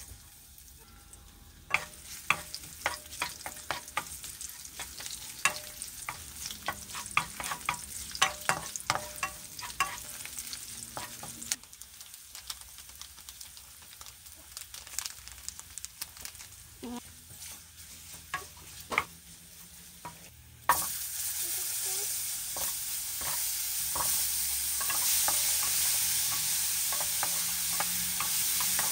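Frying in a granite-coated wok: garlic cloves go into hot oil with scattered sharp clicks and taps. About twenty seconds in, a loud, steady sizzle starts suddenly as more food goes into the pan, and it is stirred with a wooden spatula.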